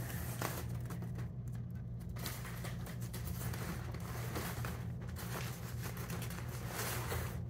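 A kitten scrambling about inside a pop-up fabric cat tunnel, giving soft rustling and light pattering, over a steady low hum.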